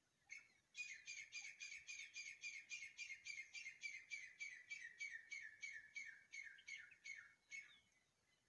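Grey francolin calling: a long run of about two dozen sharp repeated notes, some three or four a second, the later ones sliding down in pitch before the series stops near the end.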